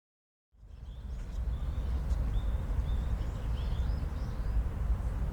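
Outdoor ambience that fades in after half a second of silence: a steady low rumble, with small birds chirping in short repeated calls over it.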